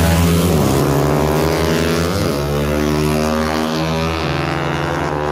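Small-displacement drag motorcycle accelerating hard at full throttle. The engine note climbs and drops back at gear shifts, about two seconds apart.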